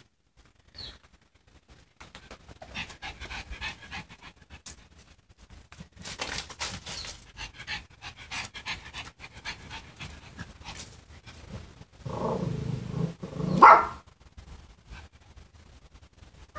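A Pekingese dog panting and scuffling in play, then a loud growl-like outburst lasting about two seconds near the end.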